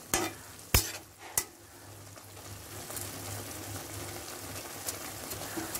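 A spatula knocking and scraping in a kadai as roasted vermicelli is pressed down into boiling water with vegetables to soak it up: three sharp knocks in the first second and a half, then a steady hiss from the simmering pan.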